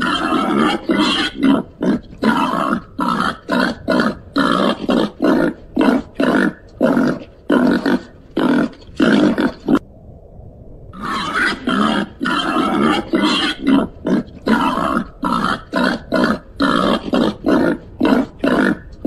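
Babirusa grunting in quick, short grunts, about two to three a second, with a brief pause about ten seconds in.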